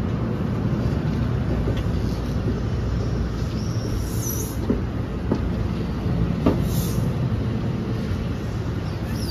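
NJ Transit Multilevel passenger coaches rolling past close by as the train departs: a steady rumble of steel wheels on rail, with a few sharp clicks in the middle and a brief high squeal about four seconds in.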